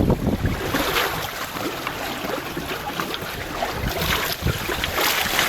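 Wind buffeting the microphone and water rushing along a sailboat's hull, with a few brief louder swishes of spray.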